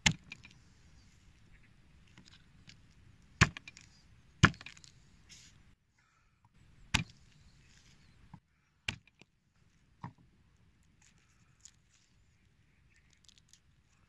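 Kitchen knife knocking on a wooden cutting board as garlic cloves are crushed and peeled: about six sharp knocks at irregular intervals, the loudest near the start and around three and a half and four and a half seconds in, with faint small clicks between.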